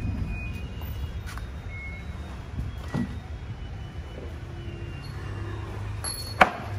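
Steady low hum of a vehicle engine running, with a few light clicks and one sharp knock about six seconds in.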